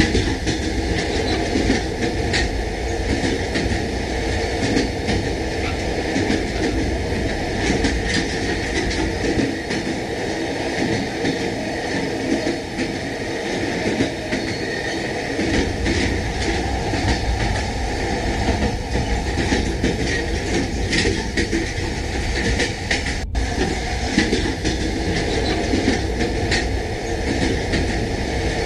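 Train running on track: a steady rumble and rattle with frequent short clicks. The deep rumble drops away for several seconds in the middle.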